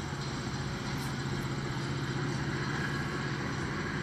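Diesel locomotive of a Metra commuter train idling at the platform: a steady, even engine hum with a constant low tone.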